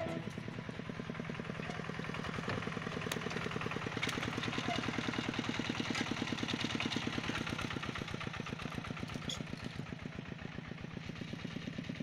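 Zubr 12 hp motor-tractor's single-cylinder diesel engine running with a steady, even chug as it pulls a trailer through soft ground.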